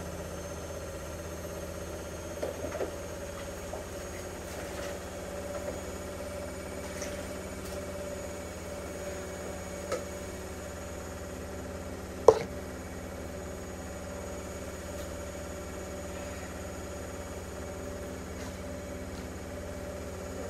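A steady low mechanical hum, with a few light clicks and taps from a squeezed plastic glue bottle being handled; the sharpest click comes about twelve seconds in.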